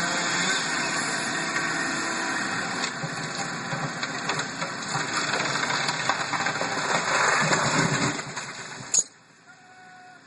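An engine running loudly with scattered knocks and cracks, cut off suddenly about nine seconds in.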